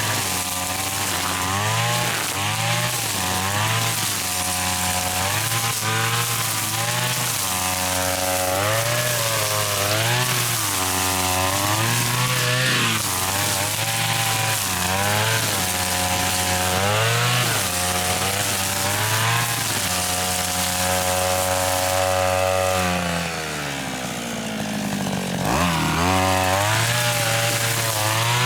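Small petrol engine of a grass cutter running at high speed, its pitch dipping and recovering every second or two as the blade bogs in thick grass. Near the end the engine drops to low speed, then revs back up.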